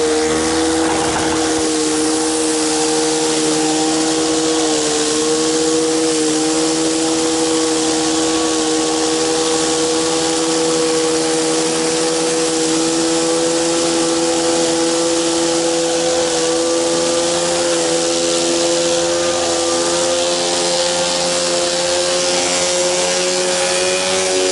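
Gas-engine pressure washer running steadily, with a high-pressure water spray hissing. The motor's pitch creeps slightly higher near the end.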